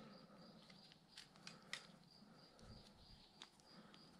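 Near silence, with a few faint clicks of a plastic zip tie being fed and pulled around a rubber inner tube on a bicycle seat tube, most of them a little over a second in and one more past three seconds. A faint high-pitched pulsing runs underneath.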